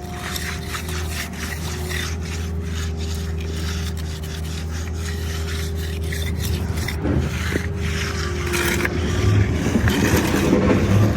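Repeated rasping scrapes of hand tools working concrete, over a steady engine hum; the scraping gets louder near the end.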